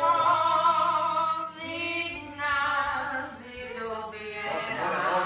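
A young woman singing a slow melody with a long held note at the start, then shorter phrases, accompanied by acoustic guitar.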